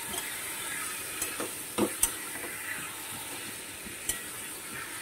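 Mutton pieces in masala frying with a steady sizzle in a steel kadai while a spatula stirs them, with a few sharp clicks of the spatula against the pan. This is the slow bhuna stage, the raw meat being fried in the spices.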